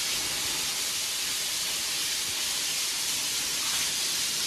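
Steady, even hiss, strongest in the high range, with no rhythm or distinct events.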